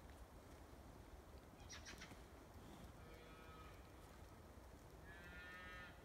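Two faint calls from Highland cattle, a short one about three seconds in and a longer, louder one near the end, heard over quiet forest background. A brief crackle of twigs comes about two seconds in.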